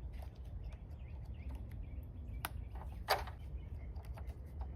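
Small plastic clicks and handling noise from truck lighting wiring connectors being worked by hand, with two sharper clicks about halfway through, over a steady low rumble.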